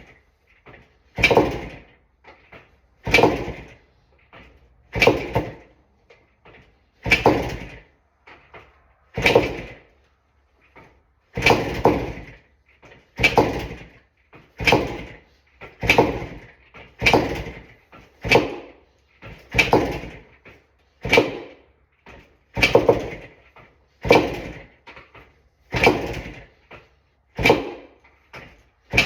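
1975 Yamaha DT175 two-stroke single being kickstarted over and over, about eighteen kicks at one every one to two seconds and quicker in the second half. Each kick turns the engine over without it catching: a bike that won't start.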